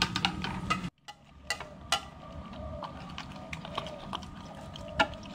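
Golden retriever puppy eating from a food bowl: irregular clicks and knocks as its mouth works the food against the bowl, with a louder click near the end.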